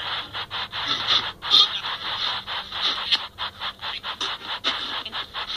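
Cosmos CT spirit box app playing a rapid, choppy stream of static and clipped sound fragments, chopped up several times a second.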